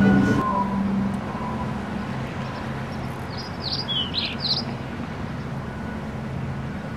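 A quick run of small bird chirps about halfway through, over a steady wash of background noise with a low hum.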